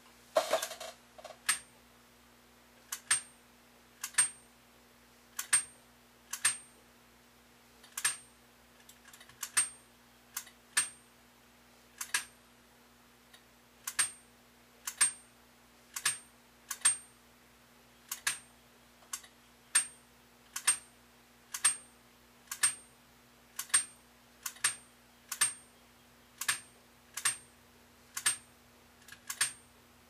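Zenith Space Command mechanical remote control being clicked about once a second: each button press snaps a small hammer against an aluminium tone rod, giving a sharp click with a brief high ring. The rod's 40.25 kHz channel-lower tone itself is above hearing. A faint steady hum runs underneath.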